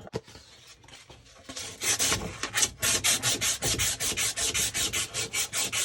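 Sandpaper scrubbing back and forth on the end of a cut water pipe, cleaning it for a push-fit fitting: quick, even rasping strokes, several a second, starting about a second and a half in.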